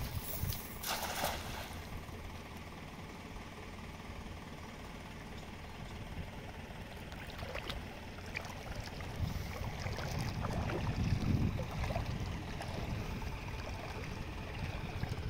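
A cast net is thrown into a shallow river and lands on the water with a short splash about a second in. After that comes water sloshing and trickling around a person wading in the river as the net is hauled back, louder from about nine seconds in.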